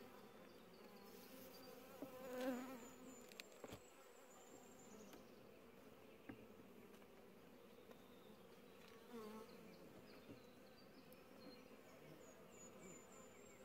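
Faint, steady hum of honeybees around an opened hive, with one light click a few seconds in.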